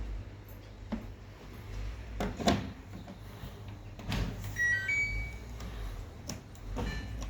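Samsung WF0600WJV washing machine being handled and set: several sharp knocks and clicks, and a short run of electronic beeps from its control panel a little past the middle, over a low hum.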